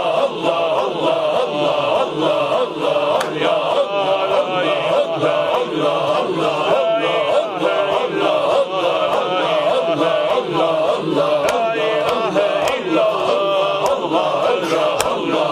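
A group of men chanting dhikr together, a steady rhythmic repetition of a short sacred phrase in Sufi Naqshbandi style.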